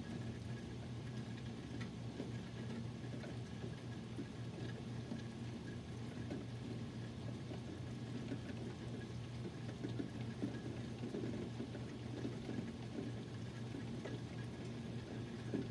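Steady rain falling in a thunderstorm: a dense, even patter of drops with a low steady hum underneath.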